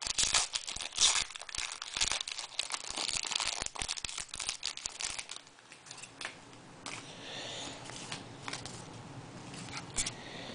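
Foil trading-card pack wrapper crinkling and tearing as a pack is opened. The crackle is busy for about the first five seconds, then thins to scattered crinkles.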